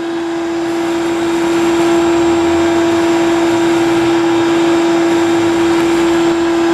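Shop vacuum running steadily with a constant whine, its hose nozzle sucking up loose UHMW plastic milling chips.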